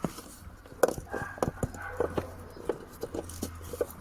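Irregular plastic clicks and knocks from a stiff Audi A4 B8 door wiring connector being levered and pulled loose by hand. The connector's locking lever is stuck.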